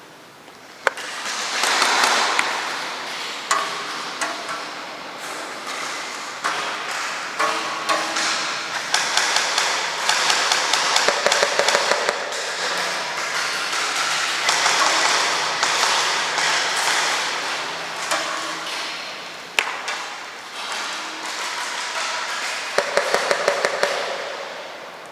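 AR-15-style rifle firing short rapid bursts, heard as tight strings of sharp clicks over a steady rustling noise.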